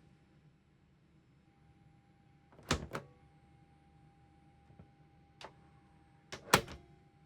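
Airbus A321 lavatory door and its latch working: two clusters of sharp clacks and knocks, the second louder, with a few light clicks between them, over a faint steady hum.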